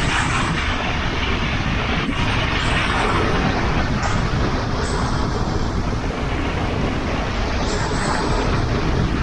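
Sea waves, a steady rushing that swells and eases, with wind rumbling on the microphone.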